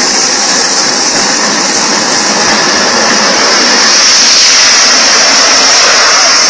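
A vehicle's engine running steadily under a loud, even rushing noise, growing slightly louder about four seconds in.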